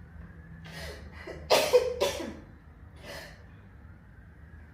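A girl sneezing: two quick gasping breaths in, then a loud sneeze about a second and a half in, followed at once by a second sharp burst, and a softer breath out afterwards.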